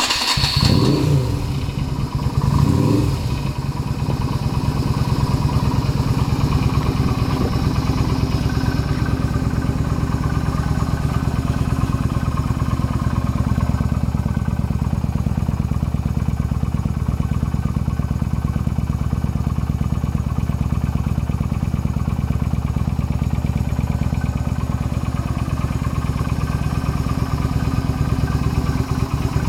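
Yamaha SRV250's air-cooled V-twin breathing through a SuperTrapp aftermarket exhaust, just started: revved briefly twice in the first few seconds, then idling steadily.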